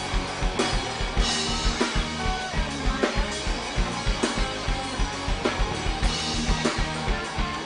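A rock band playing an instrumental passage live: a drum kit keeps a steady beat with kick drum and cymbals under electric guitar and bass.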